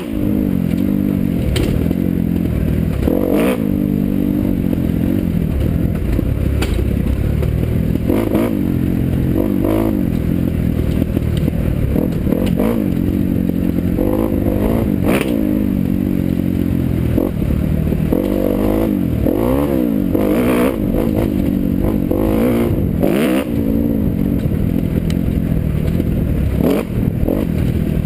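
Dirt bike engine running under load on a rough trail, its revs rising and falling again and again with the throttle. Occasional sharp knocks and rattles come through over the top.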